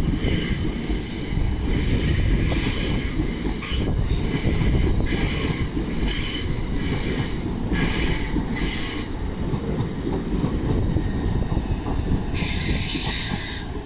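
Train moving slowly through the station with a high-pitched metallic squeal from its wheels, coming in repeated surges over a heavy low rumble; the squeal fades about two thirds of the way through, then returns strongly near the end.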